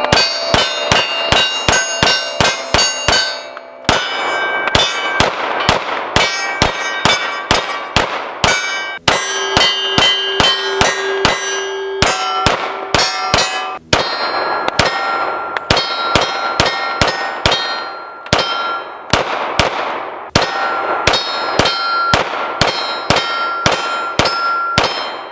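Sig Sauer P226 9mm pistol firing a long string of rapid shots with American Eagle ammunition, with a few short breaks, cycling without a malfunction. A metallic ringing hangs on between the shots.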